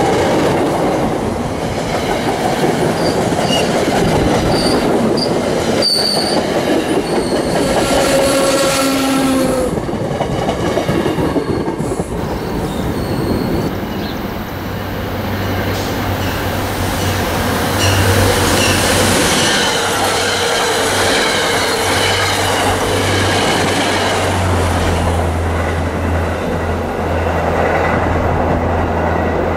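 Diesel-hauled commuter train coaches rolling past close by, wheels clacking over the rail joints with bursts of high wheel squeal. After about fourteen seconds this gives way to a steadier low drone of a train approaching from far off.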